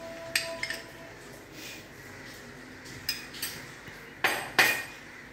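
A metal spoon clinks against a bowl and saucepan several times as butter is scooped into the pan, the two loudest clinks close together near the end. Boiling water hisses faintly underneath.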